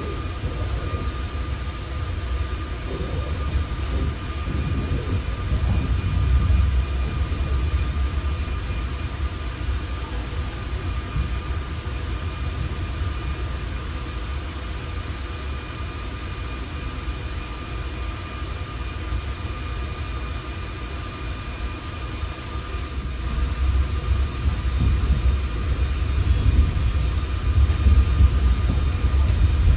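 Ride noise inside a coach of a moving electric suburban train: a steady low rumble of wheels on the rails with a faint constant high whine, getting louder over the last few seconds.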